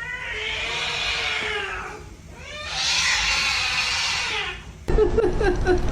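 A cat letting out two long, drawn-out yowls, each about two seconds, the second brighter and higher than the first. About five seconds in, a louder, different sound cuts in abruptly.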